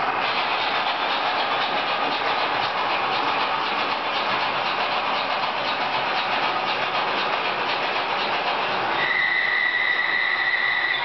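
Model railway trains running on the layout's track: a steady rattle of wheels over rail joints with faint rapid clicking. About nine seconds in, a steady high whistle-like tone comes in and holds.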